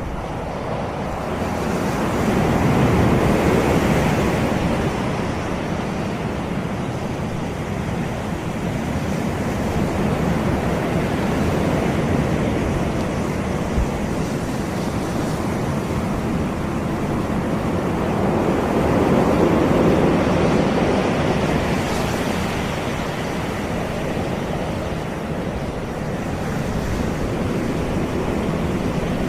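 Sea waves breaking and washing onto a beach, a steady rush of surf that swells louder about three seconds in and again around twenty seconds in.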